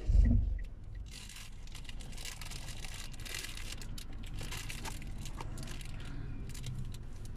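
A low thump at the start, then a paper takeout box being handled and its lid flipped open, with steady papery rustling and crackling.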